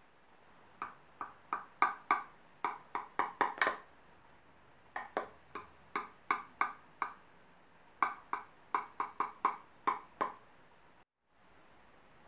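Knife tip tapping against the bottom of a ceramic baking dish as it slices through the layered pudding, in three runs of quick, short, ringing taps.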